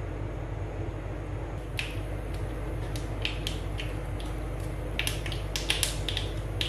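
Mustard seeds beginning to pop in hot coconut oil in a clay pot: scattered sharp pops start about two seconds in and come more often near the end, over a steady low hum. The popping shows the oil is hot enough for tempering.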